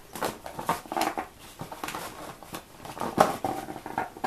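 Toy packaging being handled and pulled off a doll: irregular rustling and crinkling with scattered sharp crackles, the loudest a little past three seconds in.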